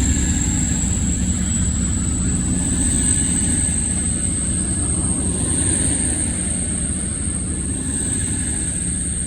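CrossCountry Class 221 Super Voyager diesel-electric unit pulling out of the station, its underfloor diesel engines giving a steady low rumble. A thin high whine climbs slightly in pitch as it gains speed, and the whole sound slowly fades.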